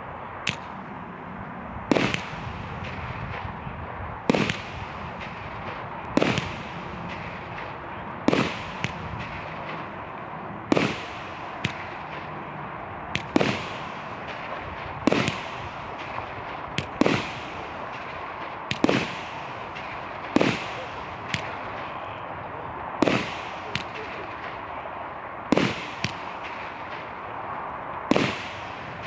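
Sovereign Fireworks 'Silvery Rain' 25-shot barrage firing shot after shot, a loud bang about every two seconds with a steady hiss between.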